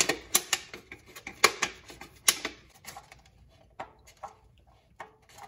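Plastic Solo cup crackling and clicking under the hands as it is twisted around a spin-on oil filter to unscrew it. The sharp clicks come thick and fast for the first few seconds, then thin out.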